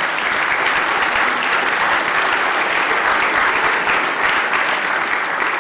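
Audience applauding steadily, many hands clapping together, right after a talk ends.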